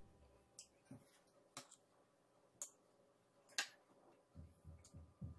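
Metal teaspoon clicking faintly against small glass dessert cups while filling is spooned in: about five light clicks spread over a few seconds, then a few soft low knocks near the end.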